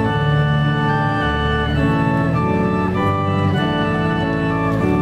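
Organ playing slow processional music: sustained chords over held bass notes, the chords changing about once a second, accompanying an academic procession.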